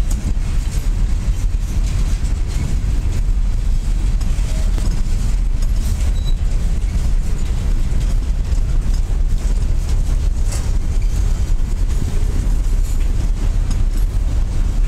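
Freight cars of a long mixed freight train rolling past close by: a steady, heavy rumble of steel wheels on the rails.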